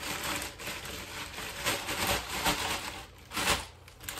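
A taped package being opened by hand: rustling and ripping of the wrapping and tape in uneven strokes, the loudest about three and a half seconds in.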